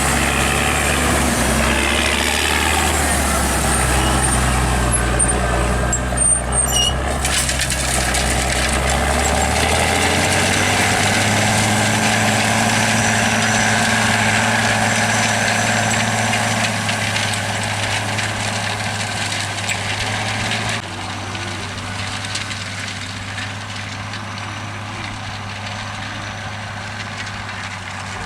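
Massey Ferguson 6499 tractor's six-cylinder diesel engine running steadily under load, pulling disc cultivators through stubble. Its engine note shifts to a higher pitch about a third of the way in, and the sound drops to a quieter level about two-thirds of the way through.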